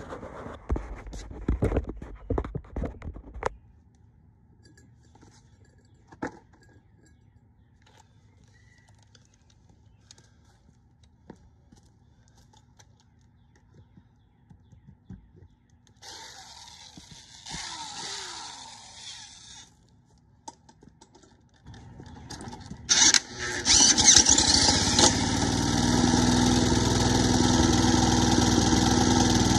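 A corded electric drill whirs, spinning the Coleman push mower's small engine through its modified starter. It whirs once briefly with no start, then cranks again well past halfway, and the engine catches and keeps running steadily.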